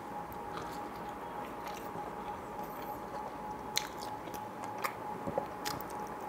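Close-miked eating of a cheesy pizza slice: wet chewing and biting, with a few sharp mouth clicks in the middle and a steady hum underneath.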